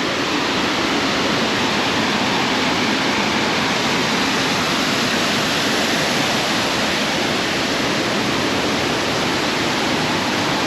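Waterfall in full spate after rain, water rushing loudly in a steady, even roar.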